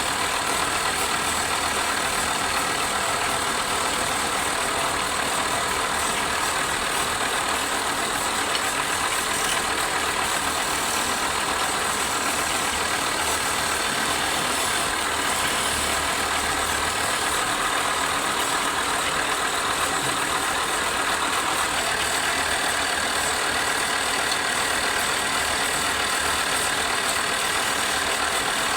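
Wood lathe running steadily, its motor and spinning workpiece making a continuous mechanical whir with an even hiss.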